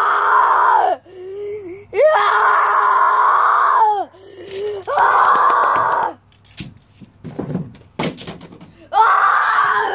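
A person screaming in a string of long, wordless cries, the longest lasting about two seconds. A few scattered knocks and clicks fill a gap of about three seconds between the last two cries.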